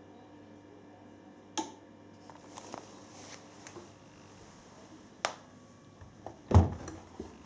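Front-loading washing machine door being unlocked and opened for unloading after the spin cycle: two sharp clicks a few seconds apart, a few small ticks, then a louder dull knock near the end.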